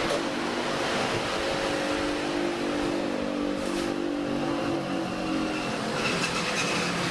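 Steady traffic-like noise with a passing vehicle's engine hum that fades out about six seconds in, followed by a thin high tone near the end.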